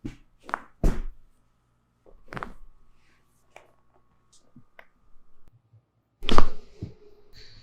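Joints popping and thudding under chiropractic adjustments: a handful of short, sharp cracks, the loudest near the end.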